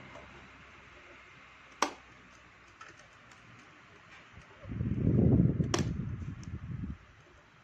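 Trio 12-inch table fan: a low hiss with a rumbling gust of air on the microphone from about five to seven seconds in, and two sharp clicks about four seconds apart.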